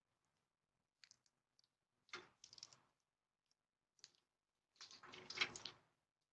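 Faint scattered clicks and short rustling, scuffling noises in a few brief clusters, the loudest near the end.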